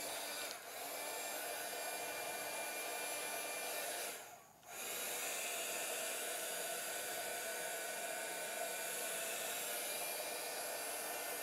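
Embossing heat tool (a small craft heat gun) blowing steadily, an even hiss with a faint motor whine, as it shrinks and melts a solder-seal wire connector. It stops briefly about four seconds in, then runs on.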